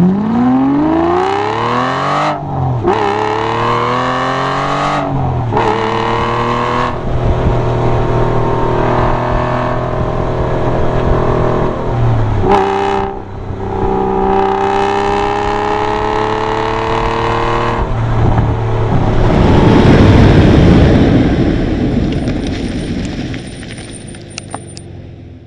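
Aston Martin V12 Vantage's 6.0-litre V12 through a Flowmaster exhaust with the baffles held open, accelerating: the pitch climbs, breaks off and climbs again several times as it shifts up through the six-speed manual, then runs steadier. Near the end a loud rushing noise swells up and the engine sound fades away.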